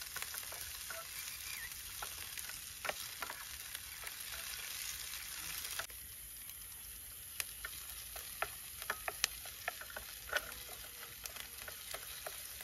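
Chopped onions and capsicum sizzling as they fry in hot oil in a pan. Through the sizzle come sharp clicks and taps of the stirring spoon against the pan, more of them in the second half.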